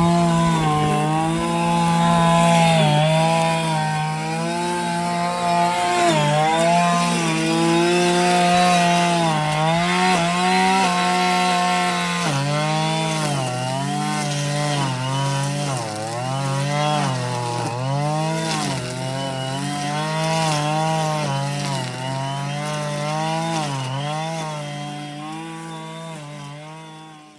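Strimmer engine running at high revs. It holds a fairly steady note at first, then from about halfway its pitch repeatedly dips and recovers as it loads up in long grass.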